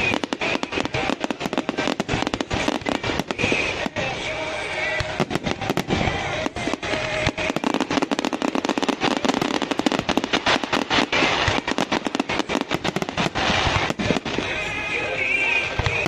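Fireworks display going off in a continuous barrage: dense, rapid bangs and crackles, several a second.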